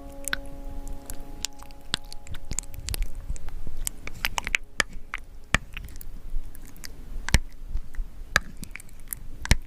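Thick wet paint being stirred and mixed, giving irregular sticky clicks and squelches. A chime-like chord rings faintly and fades away over the first few seconds.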